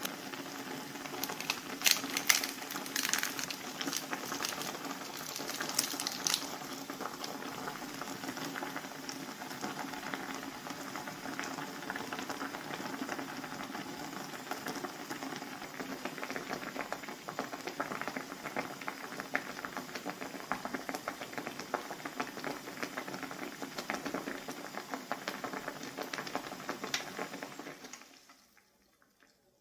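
A pot boiling on a stove, a steady bubbling with a few sharp clicks in the first several seconds. It stops abruptly near the end.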